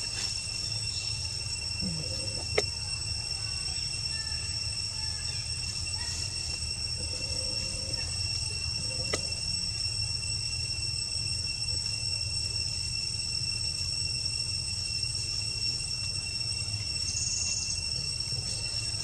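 Steady, high-pitched insect chorus of several unbroken tones, over a low steady rumble. Two sharp clicks, about two and a half and nine seconds in.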